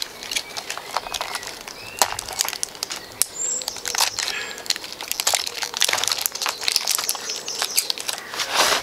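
Rustling of a plastic parts bag and paper with scattered small clicks as loose nuts and washers are picked out for the chair frame, ending in a longer, louder rustle. A few faint bird chirps come through in the background.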